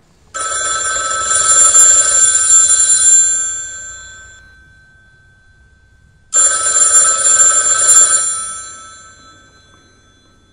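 A telephone bell ringing twice, each ring lasting about three seconds and dying away, with a pause of about three seconds between them.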